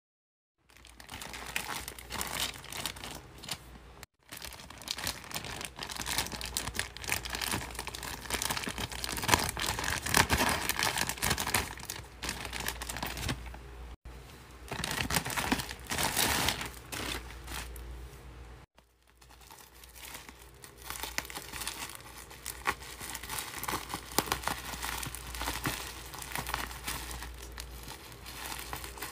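Plastic packaging and bubble wrap crinkling and crumpling as a parcel is handled and opened, with short breaks about 4 and 19 seconds in; near the end the bubble wrap is being cut with scissors.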